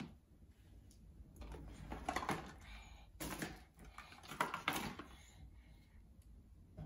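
Toys clattering and rustling in a fabric toy basket as a baby rummages through it, in a few clusters of quick clicks and knocks between about one and a half and five seconds in.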